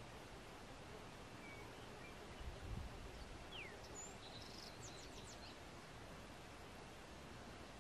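Faint outdoor ambience: a steady soft hiss with a few small bird chirps scattered through it, including a short falling whistle about halfway and a quick run of high chirps a little later. A brief low rumble a few seconds in.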